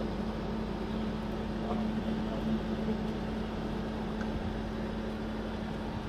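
An engine-driven machine running steadily: a constant drone with a steady low hum that holds the same pitch throughout.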